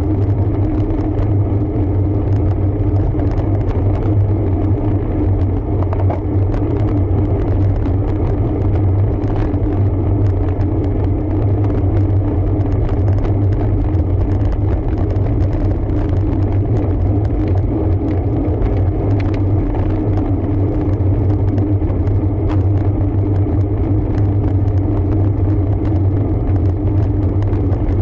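Steady rumble of riding a road bike, with wind and road noise on the bike-mounted camera's microphone.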